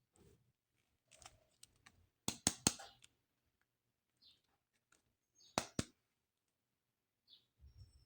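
Sharp plastic clicks and light handling noises from toys and their packaging being handled: a quick run of loud clicks a couple of seconds in, then two more clicks a few seconds later.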